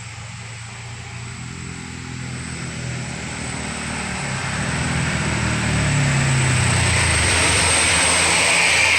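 Heavy diesel vehicle approaching, its engine growing steadily louder over several seconds, with a steady high thin tone above it.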